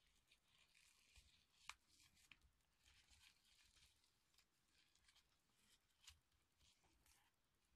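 Faint rustling of ribbon being handled, with scattered small clicks, one sharper click a little under two seconds in.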